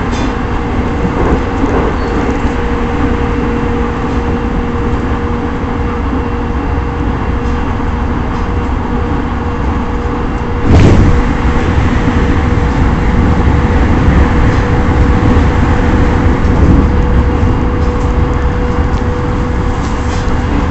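Running noise heard inside a JR East E217 series electric train cruising between stations: a steady rumble of wheels on rail with a steady hum. A sudden thump comes about halfway through, and after it the train runs a little louder.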